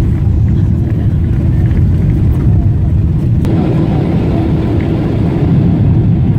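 Airliner cabin noise: a steady, loud low rumble of engines and airflow with a faint steady hum. About halfway in, a brighter rushing sound joins it and stays.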